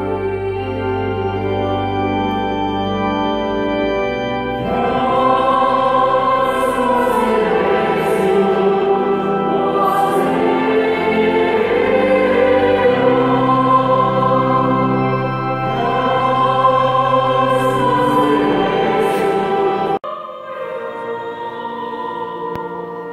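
Choir singing sacred music over steady held accompaniment tones, growing fuller and louder about five seconds in; near the end it breaks off suddenly into quieter singing.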